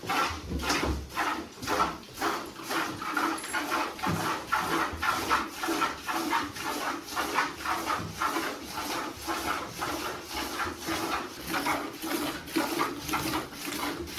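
Hand milking: squirts of milk hitting a pail in a steady rhythm of about two to three strokes a second.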